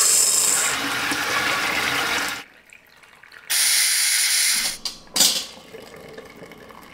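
Dried scarlet runner beans poured from a box into a stainless steel pot: a dense rattling rush lasting about two seconds. After a short pause comes a second, shorter rush of hissing steam venting from the Instant Pot Max pressure canner.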